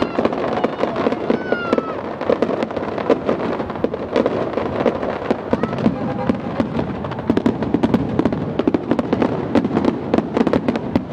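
Fireworks crackling: a dense, irregular run of rapid sharp pops and cracks.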